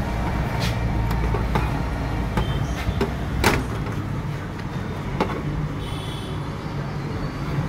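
Steady low rumble of road traffic, with a few sharp clicks scattered through it, the loudest about three and a half seconds in.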